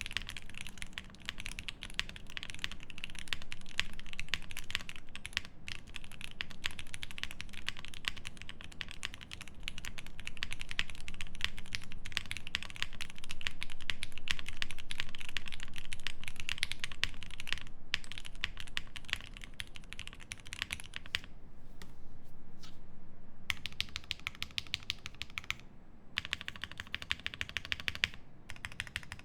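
Fast, continuous typing on an E7 V2 mechanical keyboard with Krytox-lubed Pinoko switches in an aluminium plate, GMK keycaps and full foam: a dense stream of keystrokes, with a couple of short pauses in the last third.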